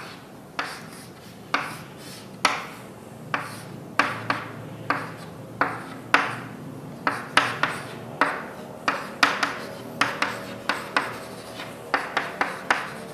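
Writing by hand, heard as a run of short scratchy strokes, about one a second at first and coming faster toward the end.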